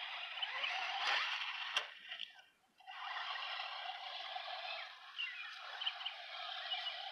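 Open-field outdoor ambience: a steady rushing hiss with scattered short bird chirps, and a brief drop-out about two and a half seconds in.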